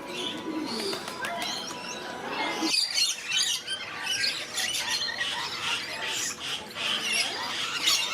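A flock of parrots squawking and chirping together, many short overlapping calls that become busier about a third of the way in.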